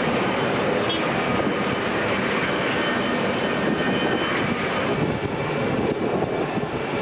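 Steady jet turbine noise of aircraft on the apron: an even roar with a faint high whine above it.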